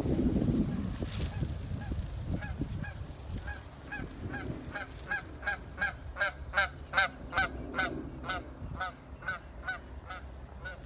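Goose honking in a rapid series of short calls, about three a second, building up to a peak partway through and then fading.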